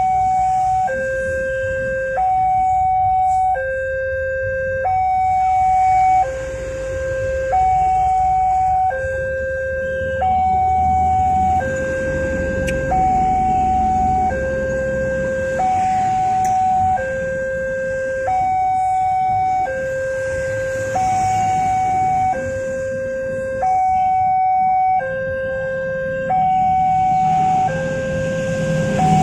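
Railroad level-crossing warning alarm from the horn loudspeaker on the crossing signal post: an electronic two-tone signal alternating steadily between a higher and a lower tone, each held about a second. It sounds while the barrier is down, warning that a train is approaching.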